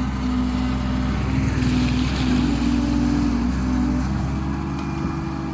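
Excavator's diesel engine running steadily, with a rush of higher noise from about a second and a half in that dies away around three and a half seconds.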